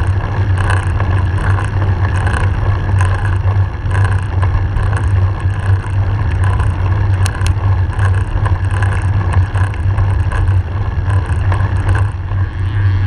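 Steady wind rush and tyre-on-road rumble on a camera mounted on a moving road bike.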